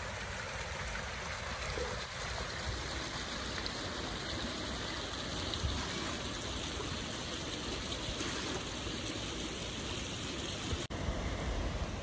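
Small snowmelt brook running over rocks: a steady rush and trickle of water, briefly cut off near the end.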